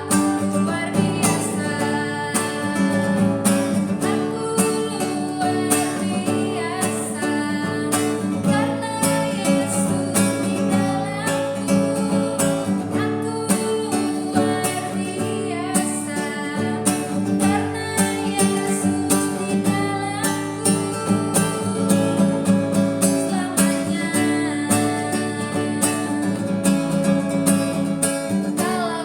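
A praise song played on a strummed acoustic guitar with a steady strumming rhythm, with singing.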